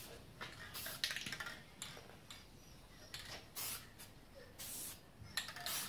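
Aerosol spray can of plastic primer sprayed in a series of short hissing bursts, about eight or nine, onto a motorcycle plastic part.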